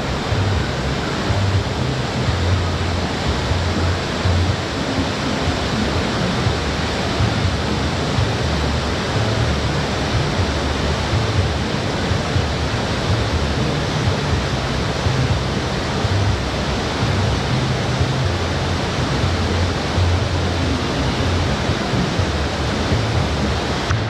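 White-water rapids rushing over and around boulders: a loud, steady roar of water with an uneven low rumble beneath it.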